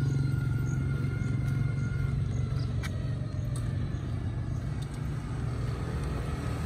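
Steady low rumble of road vehicles, with a motorcycle engine drawing closer near the end.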